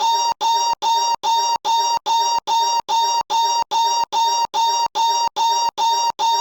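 One short, high-pitched vocal noise looped back to back about two and a half times a second, each copy identical and cut off sharply, making a stuttering, scratch-like repeat.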